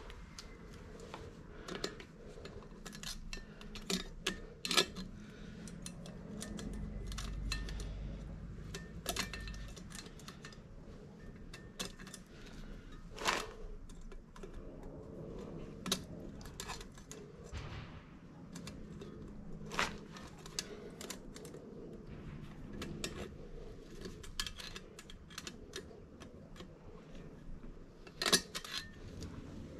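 Scattered metallic clinks and knocks of tools and parts being handled, irregular and a few seconds apart. A low rumble runs from about six to ten seconds in.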